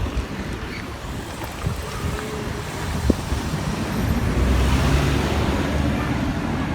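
Road traffic going by, with wind buffeting the microphone; one vehicle passes loudest about four to five seconds in.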